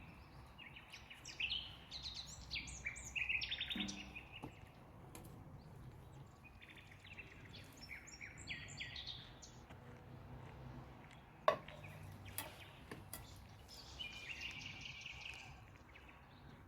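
Small birds chirping and singing in bursts of quick, high notes, with a single sharp knock about eleven and a half seconds in.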